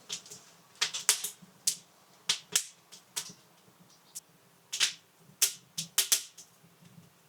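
Irregular sharp clicks and clinks of utensils and kitchenware being handled during meal preparation, about a dozen in all, a few with a short metallic ring.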